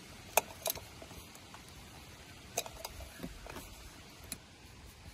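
About half a dozen sharp, scattered clicks and taps from a metal band-type oil filter wrench gripping and turning a new spin-on oil filter as it is hand-tightened.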